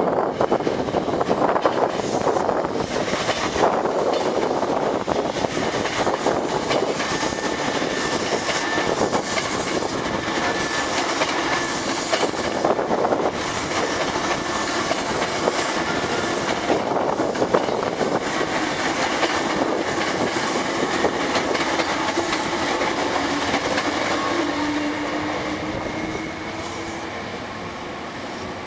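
Hankyu 3300 series eight-car electric train accelerating away, its Toyo Denki resistance-controlled traction motors giving a whine that rises in pitch while the wheels clatter over the rail joints. The sound falls off a few seconds before the end as the train draws away.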